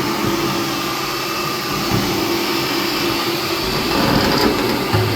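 Vacuum cleaner running steadily, a loud airflow hiss over a motor hum. About three and a half seconds in the sound grows brighter as the nozzle works, and there is a short knock near the end.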